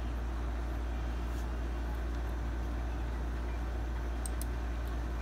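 Steady background noise: a low electrical hum under an even hiss, with a couple of faint clicks about four seconds in.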